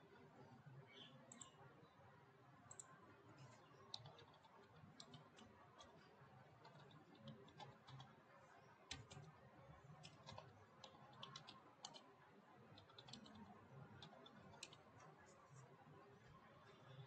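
Faint computer keyboard typing: short, irregular keystroke clicks over a low background hiss.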